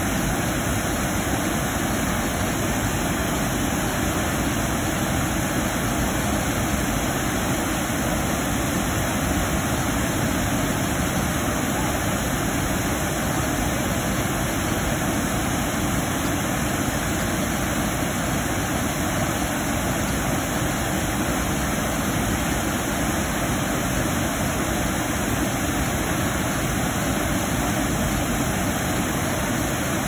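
Water pouring over a concrete dam spillway and weir gates into a churning pool below: a steady rush of whitewater.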